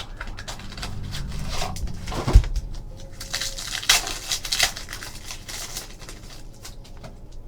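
Hands rustling and tearing open a trading card pack and handling the cards: scattered crinkles and clicks, with one thump about two and a half seconds in.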